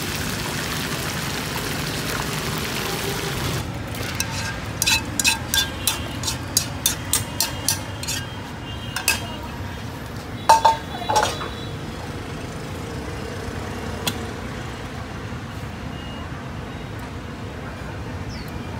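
Grouper pieces frying in oil in a wok, sizzling steadily for the first few seconds; then a quick run of sharp metal clinks of a utensil against a pot, about two or three a second, and a few louder clanks about halfway through.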